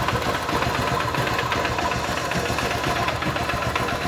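Honda Titan 150's single-cylinder four-stroke engine idling with a steady, dense knocking from inside: a very ugly noise, which the mechanic puts down to the engine running short of oil.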